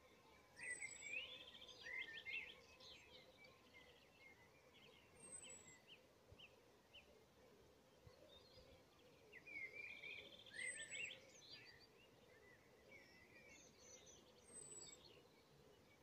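Faint songbird singing: two main phrases of quick chirps and trills, one near the start and another about nine seconds later, with softer notes between, over a faint steady background hiss.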